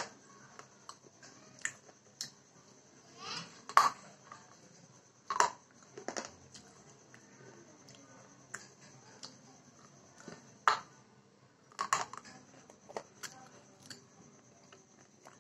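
Close-miked crunchy eating: a person biting and chewing a crunchy snack, with irregular sharp crunches every second or two between quieter chewing.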